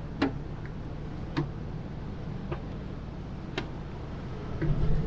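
Sharp single ticks about once a second, six in all, evenly spaced, over a steady low rumble that grows louder near the end.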